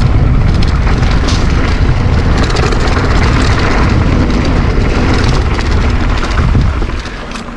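Wind buffeting an action camera's microphone, mixed with mountain-bike tyres rolling fast over a dirt trail: a loud, steady rumble with a few short knocks from bumps. It drops off about seven seconds in.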